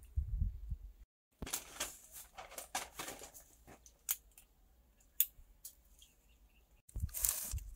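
Scattered small clicks and crackling rustles of close handling. The sound drops out abruptly about a second in and jumps back louder near the end, as at edit cuts.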